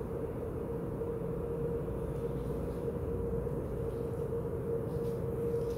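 Steady mechanical hum with a constant droning tone and a low rumble underneath, unchanging throughout.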